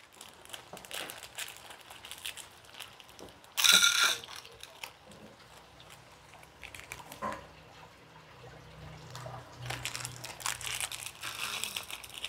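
Chopped garlic and palo spices (cinnamon sticks) frying in hot lard in an iron wok: a steady, fine sizzle with irregular crackles. A brief louder burst comes about three and a half seconds in, and the crackling grows denser in the second half.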